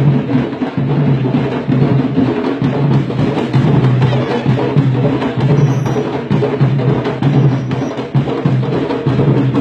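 Candombe drums (tambores) played together in a street comparsa: a dense, continuous rhythm of hand and stick strikes on the drumheads, with sharp wooden clicks of sticks on the drum shells.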